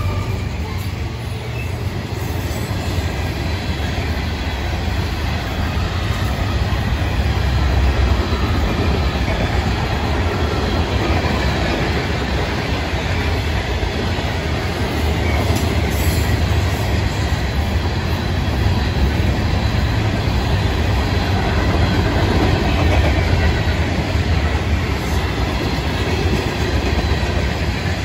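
Freight train's covered hopper cars rolling past, their steel wheels on the rails giving a steady low rumble.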